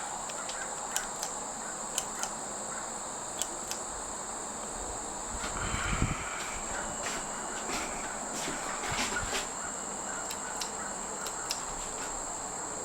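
Crickets chirring as a steady high-pitched drone, with scattered faint clicks and a brief low rumble about six seconds in.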